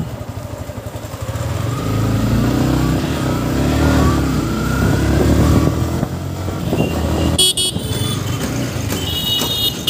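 Yamaha MT-15's single-cylinder engine running under the rider, its revs rising between about two and five seconds in. A vehicle horn beeps briefly about seven and a half seconds in and again several times near the end.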